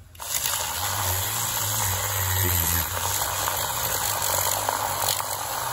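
IKEA battery-powered handheld milk frother switched on and whirring steadily, its whisk spinning in a small amount of milk in a glass.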